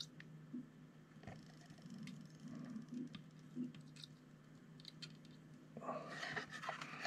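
Faint ticks and crackles as a soldering iron melts solder and flux on a battery-holder tab on a circuit board, over a low steady hum. Louder handling noise near the end as the iron is taken away.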